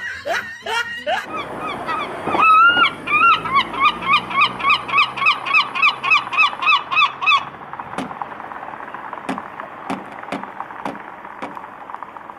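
Herring gull giving its long call: one drawn-out note, then a rapid series of loud, repeated laughing calls, about three a second, for some five seconds. After the calls stop, a few scattered sharp taps are heard.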